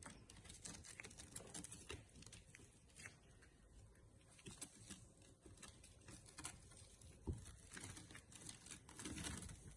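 Faint, scattered pattering, scratching and small taps of month-old Bengal kittens' paws as they move about and play, with one sharper knock about seven seconds in and a short rustle near the end.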